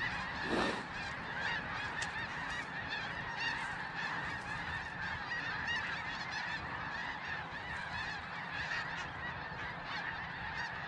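Many snow geese calling at once from a large flock, a dense, steady chorus of overlapping honks.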